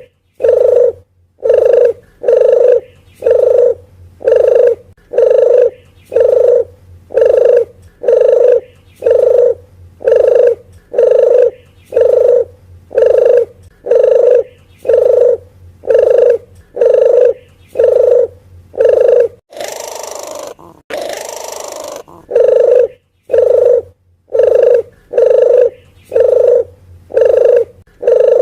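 Puter geni dove call played as a bird lure: a long run of short, even coos repeating about twice a second, broken about two-thirds of the way through by two longer, harsher notes.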